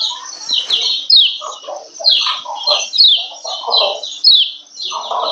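Female yellow white-eye (kecial kuning) giving its 'ciak ciak' call: rapid runs of short, high, downward-sliding chirps, repeated again and again. This is the female call that keepers play to bring male kecial into breeding mood and get them singing. Lower-pitched calls come in between the runs.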